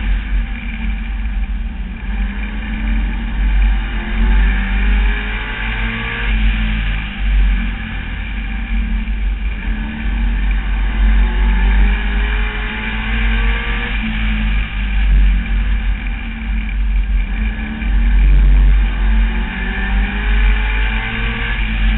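Street stock race car's engine at racing speed, heard from a camera mounted on the car, with a heavy low rumble throughout. The engine pitch climbs three times as the car accelerates down the straights and drops back as it lifts for the turns.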